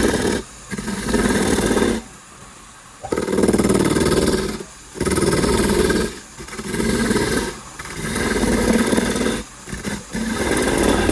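A woodworking power tool cutting wood in a run of about seven bursts, each roughly a second long, with short breaks between them.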